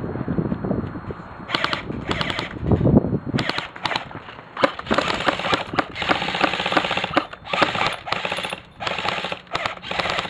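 Airsoft electric guns firing on full auto: repeated bursts of fast mechanical clatter from their gearboxes, starting about a second and a half in, with a long burst in the middle.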